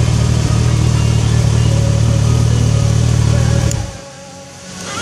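Kawasaki motorcycle engine idling with a steady low hum, then switched off about four seconds in, the sound cutting out abruptly.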